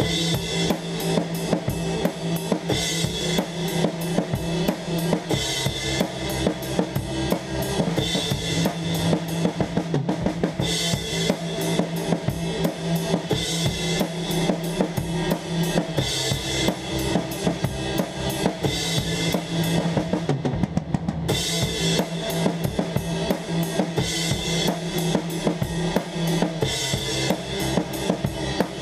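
Drum kit and electric bass guitar playing a rock groove together: kick and snare hits under cymbal wash, over a held low bass line. The cymbals drop out for a moment about twenty seconds in.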